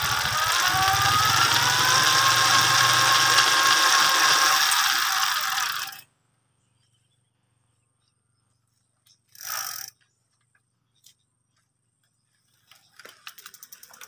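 Motorized bicycle running: a loud noise with a whine that rises in pitch over the first two seconds and then holds steady, cutting off abruptly about six seconds in. After near silence and a brief rush of noise, rapid ratchet clicking of the rear freewheel starts near the end as the bicycle rolls away.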